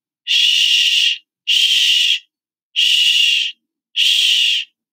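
A voice saying a drawn-out "shh" four times, each lasting about a second with short pauses between. It is the /sh/ sound of the letters sh, standing for the ocean heard in a seashell.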